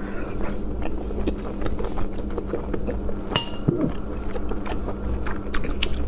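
Close chewing and wet mouth clicks as a person eats soft sauced shellfish, with one sharper click about three seconds in. A steady low hum runs underneath.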